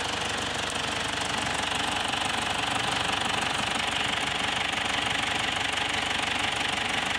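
Mazda BT-50's 2.5-litre four-cylinder turbo diesel idling steadily, heard from over the open engine bay.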